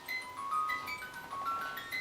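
Soundtrack music: a quick melody of high, bell-like notes, about five a second, each ringing on briefly.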